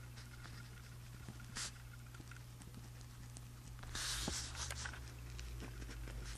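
Pen writing on journal paper: faint scratching strokes and small ticks, with a louder scratching stretch about four seconds in.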